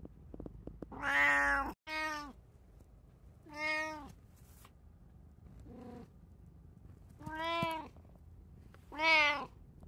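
Tabby cat meowing close up: six short meows, a pair about a second in, then one every second and a half or so, the one near six seconds faint and the last, just after nine seconds, the loudest.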